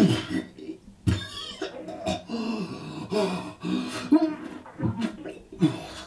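A person's voice in a run of harsh, cough-like outbursts, about five of them, with strained pitched vocal sounds between.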